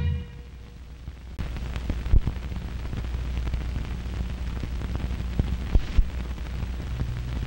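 Worn film soundtrack noise: a low hum, then a steady hiss that comes in suddenly about a second and a half in, sprinkled with irregular crackles and sharp pops.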